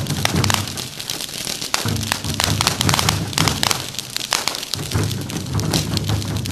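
Fireworks on a burning effigy, crackling and popping with dense sharp cracks many times a second. Under them a low rumble swells and drops away every two or three seconds.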